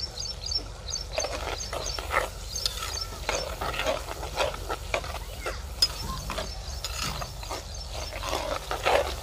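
Steel slotted spoon scraping and stirring chopped onions in oil against the sides of a clay cooking pot, in quick irregular strokes, as black pepper is stirred into the softened onions. A bird chirps in a rapid series during the first second or so.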